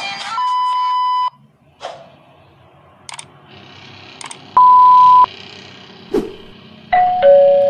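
Electronic sound effects: a plain steady beep about a second long, a few short sharp clicks, a second beep of about half a second, then two lower tones, one after the other, near the end.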